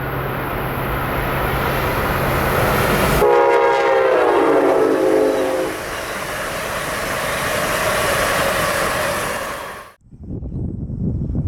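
Amtrak Avelia Liberty high-speed trainset rushing past, with its horn sounding one chord for about two and a half seconds a few seconds in; the chord drops in pitch partway through. The train's loud rush cuts off abruptly near the end, leaving fainter gusty rumbling.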